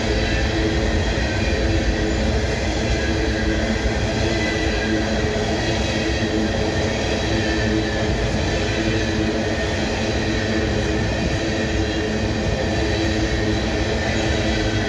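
Freight train rolling past at steady speed: a continuous rumble of wheels on the rails with steady ringing tones over it.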